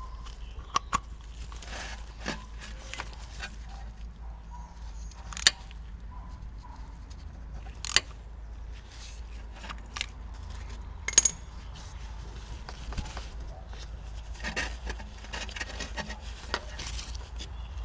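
Hand tools clicking, knocking and scraping irregularly against metal parts, with a few sharper clinks, as a transmission connector adapter plug is being tightened.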